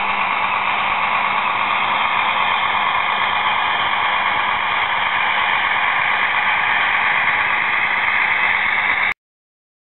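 Digital sound module of a Viessmann HO-scale tamping machine model playing a steady, static-like rushing noise through its small loudspeaker. The noise cuts off suddenly about nine seconds in.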